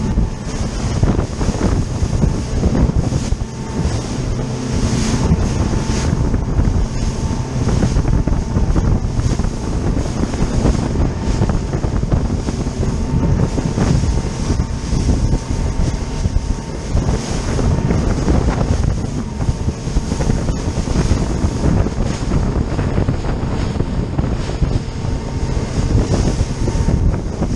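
Wind buffeting the microphone over the rush of spray and choppy water as a RIB runs at speed, with its engine running steadily underneath.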